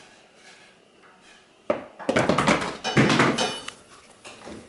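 A plastic sippy cup knocking and clattering on a hardwood floor: a sharp knock about two seconds in, then a couple of seconds of clatter and handling noise as it is picked up.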